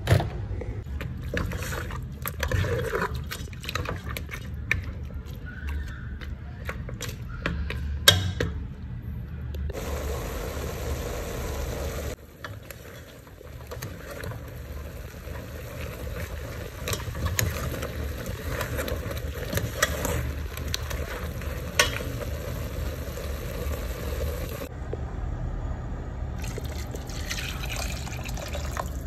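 A run of cooking sounds: tongs clattering on sliced bamboo shoots in a plastic colander, then a spatula stirring and scraping chicken pieces in a metal pot with occasional clinks, and water poured into the pot near the end.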